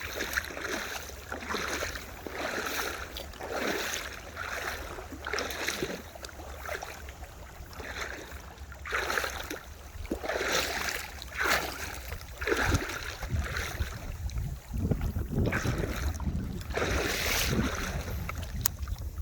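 Water swishing and splashing in repeated strokes, roughly once a second, over a low wind rumble on the microphone.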